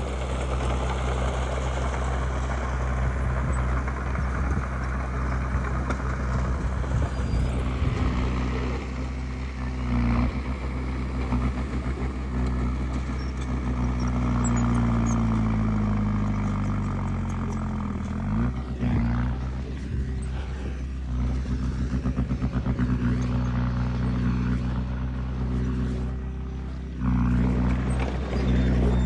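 Heavy diesel engine of earthmoving machinery running steadily under load. Around the middle its pitch sinks for a few seconds, then it picks up again, and it grows louder near the end.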